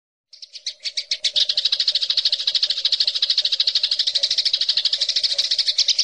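Prenjak lumut song: a shrill, very rapid trill of repeated high notes, swelling over the first second and then running on without a break.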